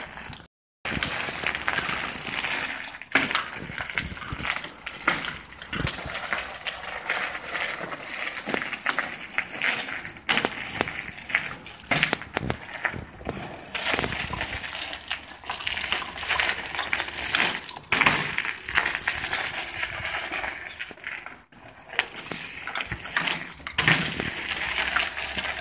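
Full-suspension mountain bike rolling over gravel, the tyres crunching the stones, with frequent short knocks and clatters as the bike is hopped and its wheels come down.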